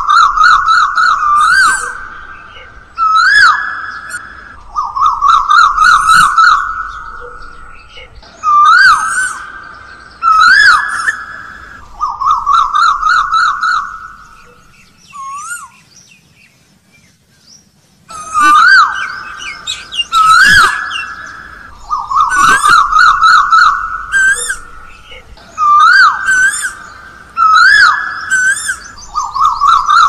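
Male Asian koel calling: repeated rising whistled notes in bursts of a second or two, with a quiet gap about halfway.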